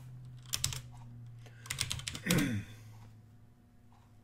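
Computer keyboard keys being pressed: a few clicks about half a second in, then a quick run of clicks followed by a short, louder sound that falls in pitch just before the middle. A steady low hum sits beneath.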